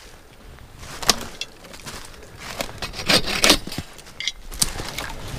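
Footsteps through a thin layer of snow over dry leaf litter, irregular crunching and rustling steps, busiest and loudest about three seconds in.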